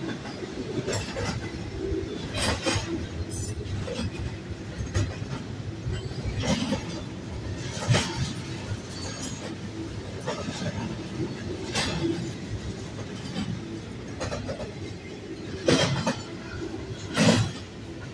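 Double-stack intermodal well cars of a freight train rolling past: a steady rumble of wheels on rail, broken by irregular clanks and clacks every second or two, the loudest near the end.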